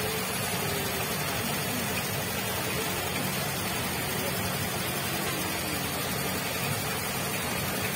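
Steady rushing noise with a few faint, brief pitched sounds over it.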